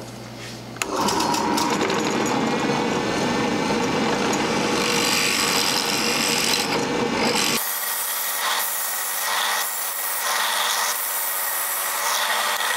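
Drill press boring a 7/16-inch twist bit into a solid mahogany ball, with the motor running and the bit cutting wood, starting about a second in. About halfway through, the deep part of the sound drops out and the cutting goes on more unevenly.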